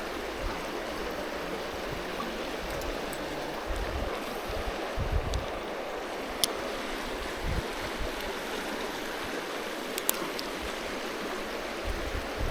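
Creek water running steadily, with a few low thumps and a couple of sharp clicks.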